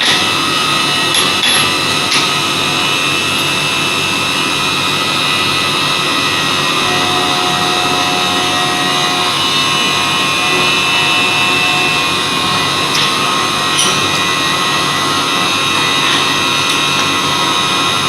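CNC vertical machining centre milling metal: a steady, loud machining noise with several high whining tones from the spindle and cutter, and a few faint clicks.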